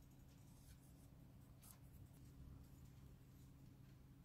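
Near silence: a low steady room hum with a few faint scratches of a felt-tip marker on a sterling silver strip.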